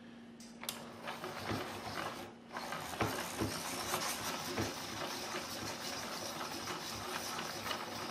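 Westcott iPoint Titanium manual hand-crank pencil sharpener being cranked, its titanium-bonded cutter shaving a wooden pencil: a steady grinding run of rapid clicks. The cranking stops briefly a little over two seconds in, then carries on.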